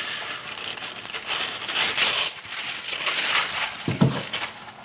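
Parchment paper rustling and crinkling as a sheet is pulled out and handled, with a louder crinkle about two seconds in. A dull thump comes near the end.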